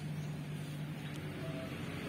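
Steady low hum over an even background hiss, with no distinct event.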